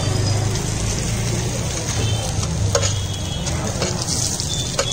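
Chaat frying and sizzling in oil on a street-stall pan, with two sharp metal taps of a utensil against the pan, one a little before the middle and one near the end.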